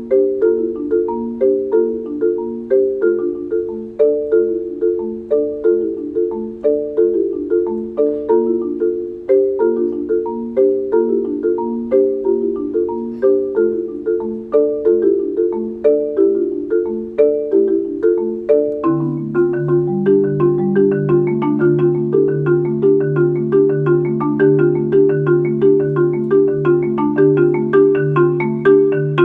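Solo marimba playing fast, evenly repeated mallet patterns. About two-thirds of the way in, a low bass note joins, pulsing steadily under the upper notes, and the texture thickens.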